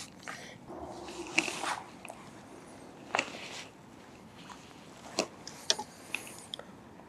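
Scattered small clicks and brief rustles of fishing tackle being handled as a baited float rig is swung out on a long rod.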